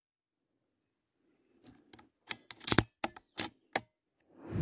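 Handling noise from a PCP air rifle with a scope-mounted camera: a quick run of sharp clicks and knocks over about two seconds, then a dull thump near the end as the rifle is moved.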